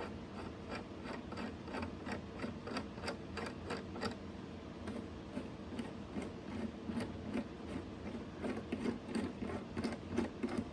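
Light, irregular clicks and rubbing as a small metal clamp assembly is handled and its screw is turned, about two or three clicks a second, thinning out after the first few seconds, over a low steady hum.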